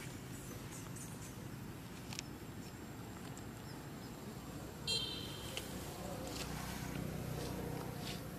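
Outdoor ambience: a steady low rumble, with a few faint high chirps and a brief high-pitched call about five seconds in.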